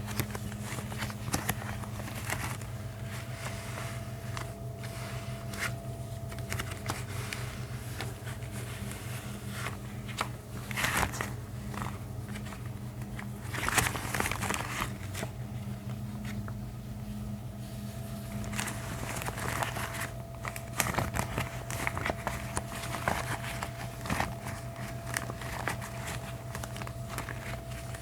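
Gloves being rubbed, crinkled and tapped close to the microphone, in irregular bursts of small clicks and scrapes that cluster more densely several times, over a steady low hum.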